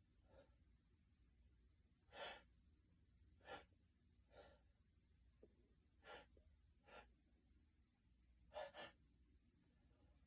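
A man's faint sniffs and short breaths in the lull between sneezes: about seven brief intakes, spaced a second or two apart, with a quick double sniff near the end.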